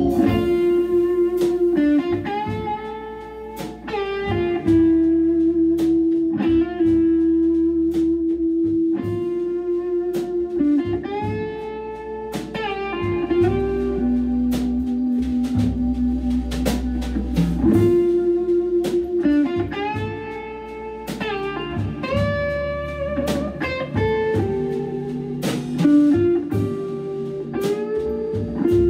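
Hammond B3 organ, electric guitar and drum kit playing a bluesy jazz tune: a bending guitar melody over long held organ chords, with steady drum strikes.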